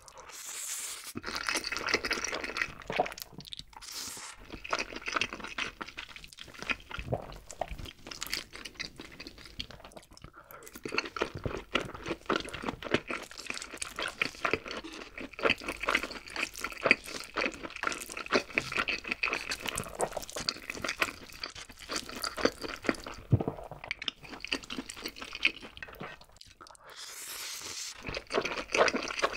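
Close-miked eating of Chapagetti black bean instant noodles: a slurp as the noodles go in, then steady wet chewing with many small mouth clicks, and another slurp from the spoon near the end.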